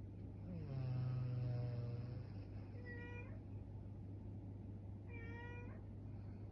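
A sleeping woman snoring: one long snore starting about half a second in and lasting nearly two seconds, followed by two short, high squeaks a couple of seconds apart.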